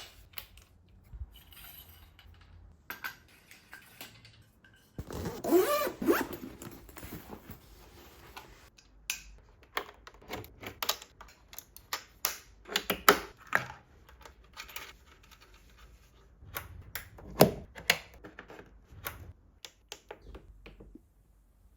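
Close handling noises: scattered clicks, scrapes and rustles, with a longer scraping patch about five seconds in and one sharp loud click about seventeen seconds in.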